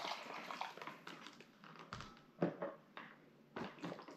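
Boiling water pouring into a foil freeze-dried meal pouch trails off. Then the pouch crinkles and rustles as it is handled, with a few sharp knocks, the loudest about two and a half seconds in, as the glass measuring cup is set down.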